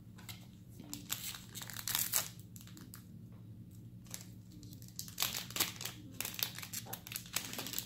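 Plastic wrapper of a Weiss Schwarz trading-card booster pack crinkling and tearing as the pack is ripped open by hand and the cards are pulled out, in scattered bursts.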